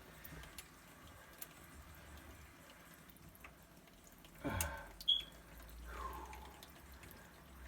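Faint scattered clicks and small knocks of hand work on a central-heating pump fitting, with one louder knock about four and a half seconds in.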